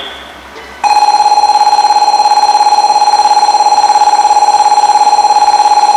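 Station platform train-approach warning alarm: a loud, rapidly pulsing electronic tone that starts abruptly about a second in and keeps going, warning of a Shinkansen train approaching the platform.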